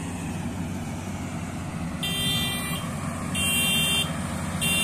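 Combine harvester engine running steadily. About two seconds in, an electronic warning beeper starts, giving repeated high beeps a little over a second apart.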